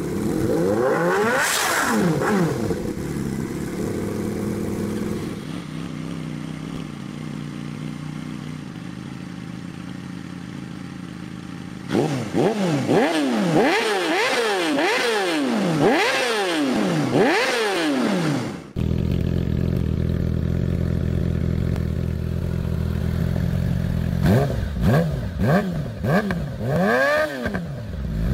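Yamaha YZF-R6 inline-four sport bike engine through an aftermarket exhaust, idling and revved repeatedly in sharp blips that rise and fall quickly. After an abrupt cut partway through, another clip idles and is blipped several more times near the end.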